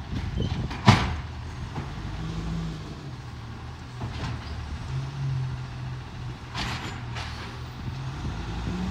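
Autocar ACX garbage truck's engine running while the truck stands, its pitch rising briefly a couple of times. A sharp bang about a second in is the loudest sound, and there are a few short hisses of air.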